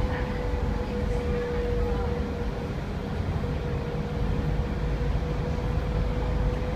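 Dennis Enviro 400 double-decker bus running, heard from inside the lower deck: a low engine and road rumble with a steady whine.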